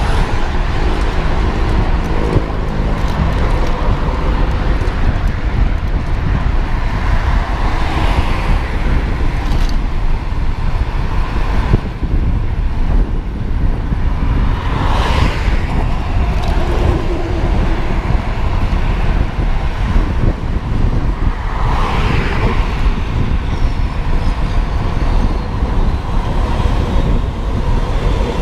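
Heavy wind rush on the microphone of a road bike riding at about 35–39 km/h, with road traffic alongside. Three vehicles swell up and fade as they pass close by, about 8, 15 and 22 seconds in.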